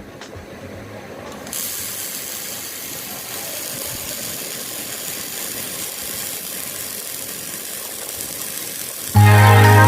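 Robotic welding machine at work: a steady mechanical hiss that grows louder about a second and a half in. Music starts abruptly near the end.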